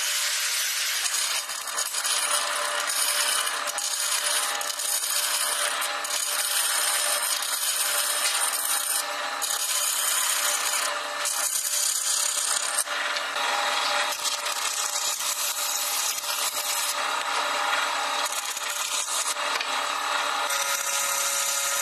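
A tool working wood: a continuous rasping, rubbing sound with a faint steady motor tone beneath it, shifting in character a couple of times.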